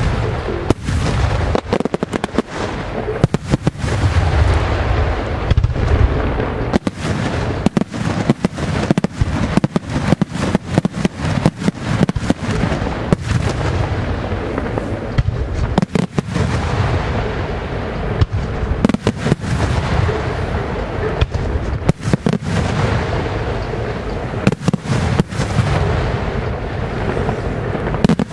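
Aerial fireworks display: a dense, unbroken barrage of shell bursts, several bangs a second, with a continuous rumble and crackle between them.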